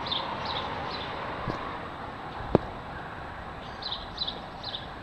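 Outdoor background noise with a small bird chirping repeatedly in short high notes, mostly in the last second and a half, and a single sharp click about two and a half seconds in.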